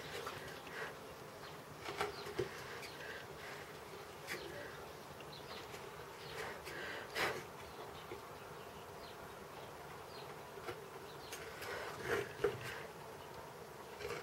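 A chip-carving knife cutting into wood: scattered short scrapes and clicks, a few louder ones about 2, 7 and 12 seconds in, over a steady buzzing hum.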